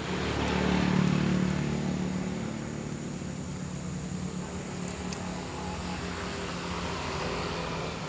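An engine passing by: a steady pitched hum that swells to its loudest about a second in, then fades and runs on at a lower level.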